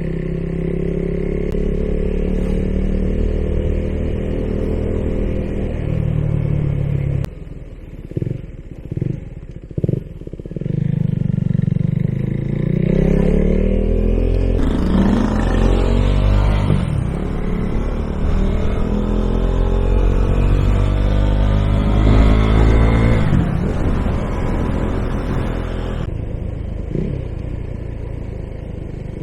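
KTM Duke 390's single-cylinder engine exhausting through an aftermarket Akrapovic pipe. It runs steadily, drops off with a few short blips, then rises in pitch through a long acceleration, holds, and falls back to a steady lower note near the end.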